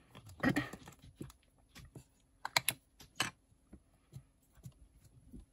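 Light plastic clicks and taps from handling a small Archival Ink stamp pad, which is opened and dabbed for inking a rubber stamp. There is a short rustle and cluster of clicks near the start, then scattered single clicks.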